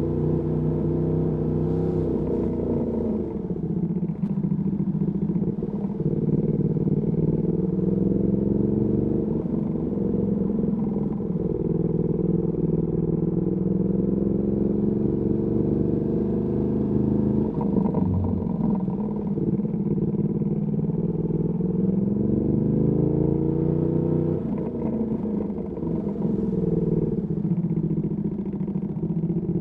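Ducati Panigale V2S V-twin engine through a Termignoni exhaust, riding in traffic. It runs at a steady low note, then its pitch climbs in several long pulls and drops back between them as it accelerates and eases off.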